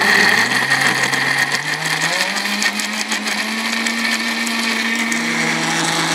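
IDEALIFE IL-220a electric blender running at its fastest speed, chopping red chillies and a little water into a smooth paste. The motor whine steps up in pitch about two seconds in and dips slightly near the end.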